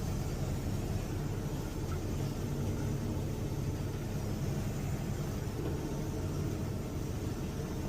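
Semi truck's engine running with a steady low rumble.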